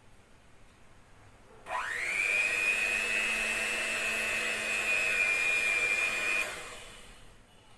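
Electric hand mixer switched on about two seconds in, its motor whine rising quickly to a steady pitch as the beaters work the frosting, running for about five seconds before it is switched off and spins down.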